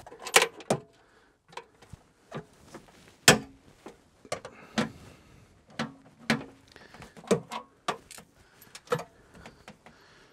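Hand tools clicking and knocking on metal at irregular intervals, a sharp knock every second or so, as the bolts holding a Mercedes Sprinter seat unit to the floor are undone. The loudest knock comes about a third of the way in.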